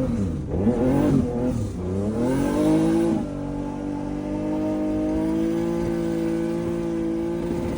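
Turbocharged BMW E36 engine revving up and down a few times, then climbing and holding a steady pitch from about three seconds in.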